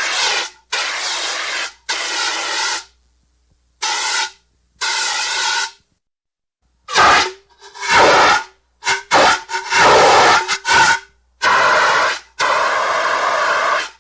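Fire extinguisher discharging in about a dozen short hissing sprays, each cut off sharply, with a run of quick stuttering blasts in the middle.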